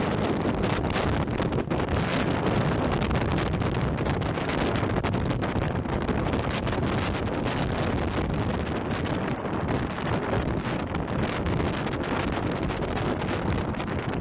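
Hurricane-force wind gusting over the microphone: a loud, dense rush of wind noise that barely lets up.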